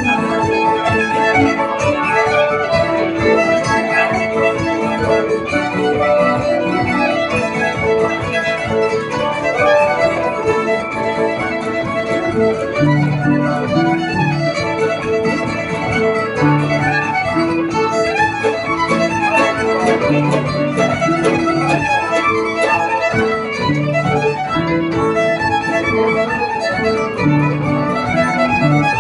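Live acoustic session music: a bowed fiddle carries the tune, with a mandolin and an acoustic guitar playing chords beneath it, without a break.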